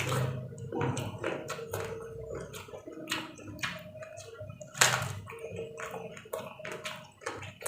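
Close-up chewing of raw vegetables: irregular crisp crunches and wet mouth clicks, with louder crunches about three and five seconds in.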